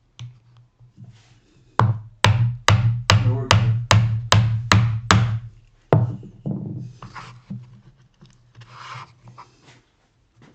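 Mallet striking a chisel, chopping out dovetail waste: about ten sharp knocks in quick succession, then a few fainter sounds.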